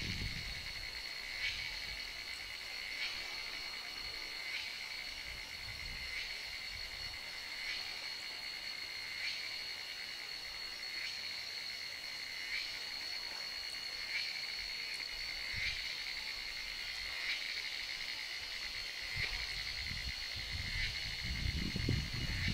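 Steady high-pitched chorus of insects in the trees, with a short animal call repeating about every second and a half. Low rumbles come in now and then, most near the end.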